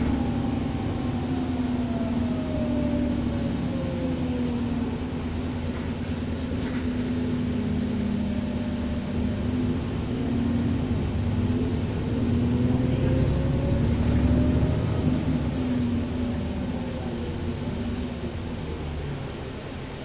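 Alexander Dennis Enviro400 double-decker bus heard from inside the passenger saloon: a steady engine drone with a squealing whine over it that falls in pitch over the first few seconds, rises again from about ten seconds in, and drops back near the end.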